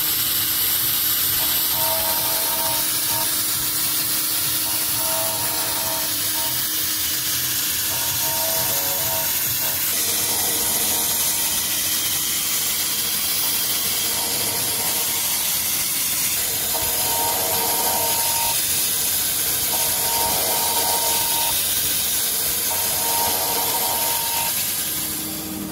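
UDM-2216 three-axis CNC machining center milling a steel mold core: a steady, harsh hiss of the cutter working the steel.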